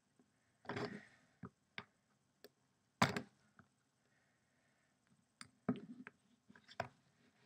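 Scissor blades prying and scraping at the hard plastic case of an Apple EarPods box, making irregular clicks and knocks. The loudest knock comes about three seconds in.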